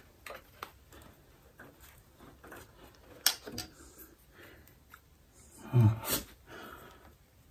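Stator cover of a motorcycle engine being handled and offered up to the engine case: scattered light clicks and knocks, a sharp knock about three seconds in, and the loudest, longer knock as it is pressed into place about six seconds in.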